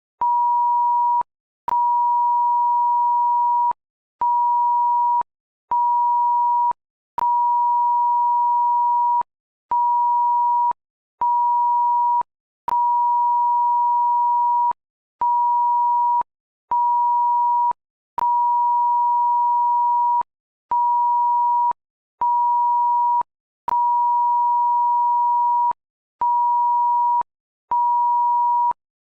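Single steady 960 Hz tone in the Taiwanese disaster-alert cell-broadcast attention signal, synthesised in Audacity rather than recorded from a phone. It sounds as a string of loud beeps of about one and two seconds, mixed in an uneven pattern and split by short gaps, with a faint click as each beep starts and stops.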